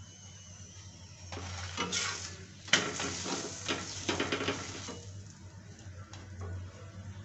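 Steel spatula pressing and scraping a stuffed paratha on a hot iron tawa, with sizzling and crackling as it fries and a sharp metal clink about two and a half seconds in. The scraping and sizzling die down about five seconds in.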